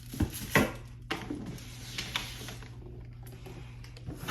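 A box being opened and its contents handled: two sharp knocks in the first second, then rustling and a light click.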